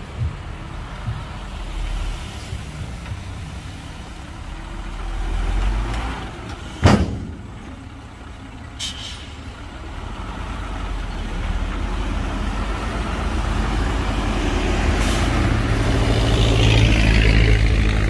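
Heavy diesel dump truck engine running, growing louder over the last few seconds as it pulls. A single loud bang about seven seconds in, and short hisses of air brake release around nine and fifteen seconds.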